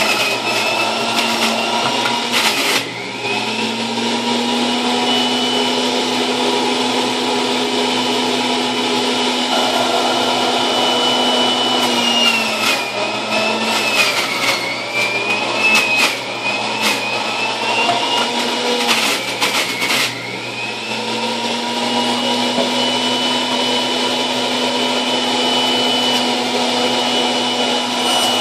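Electric centrifugal juicer running at high speed, its motor whine dipping in pitch and recovering about three times as produce and greens are pressed down the feed chute and the motor is loaded. Scattered crunching and grinding as the produce is shredded.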